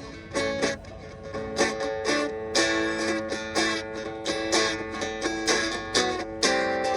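Acoustic guitar strumming chords in a steady rhythm, about two strums a second.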